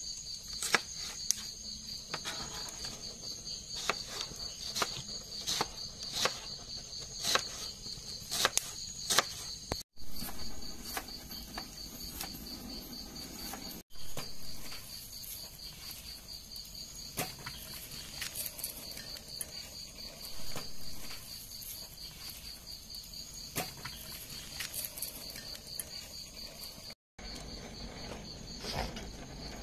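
Knife chopping onion on a cutting board, a sharp tap roughly twice a second through the first third, then only scattered taps. Crickets chirp steadily throughout.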